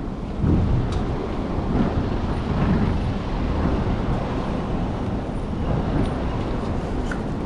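Road traffic on a city street: a steady, rumbling wash of passing vehicles.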